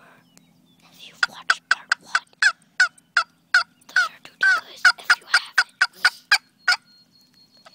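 Turkey gobbling: a long run of short, sharp calls, several a second, lasting about six seconds, over a faint steady low hum.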